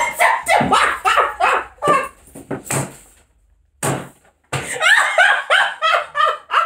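Two women laughing hard in short, rapid bursts, with a lull about three seconds in before the laughter picks up again.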